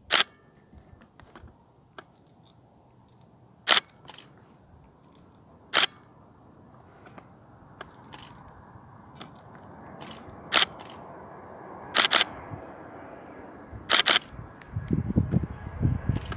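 Camera shutter clicks, single and in quick pairs, about eight in all, over the faint rising noise of a jet airliner on approach. The jet noise grows louder and deeper in the last couple of seconds.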